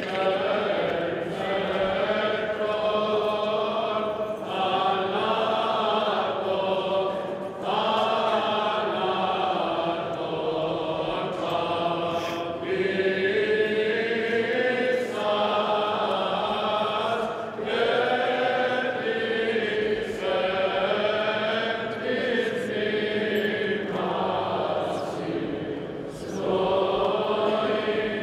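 Byzantine chant sung by a choir: a melodic line over a steady low held drone, in long phrases separated by brief pauses.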